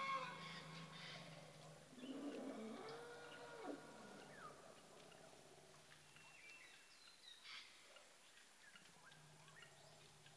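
Forest elephants calling in excitement: a high, many-harmonic call trails off right at the start, and a lower, pitch-bending call follows about two seconds in. A faint low hum runs under them, and short bird chirps come in the quieter second half.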